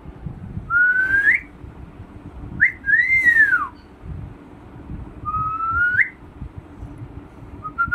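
Whistling in three short phrases: a whistle that rises, a higher one that climbs and then falls away, and another rising whistle. A fourth begins near the end.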